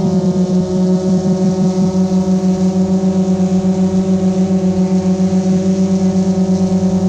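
GoPro Karma quadcopter's motors and propellers humming steadily in flight, a low buzzing tone with a stack of overtones and a fast, regular pulsing. It is heard up close from the camera mounted on the drone itself.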